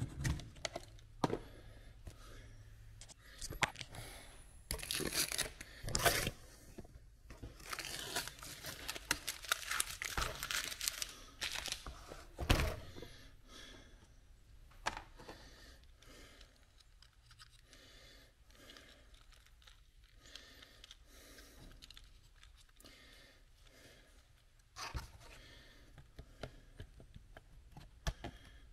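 Handling noises of an HDPE plastic panel and a small wired switch panel being fitted together: scraping and rustling with scattered clicks and knocks, busiest in the first half, with one sharp knock about halfway through.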